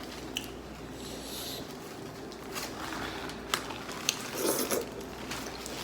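Eating a saucy seafood boil: chewing and wet squishing of sauce-covered food, with a few small clicks and a brief louder rustle about four and a half seconds in.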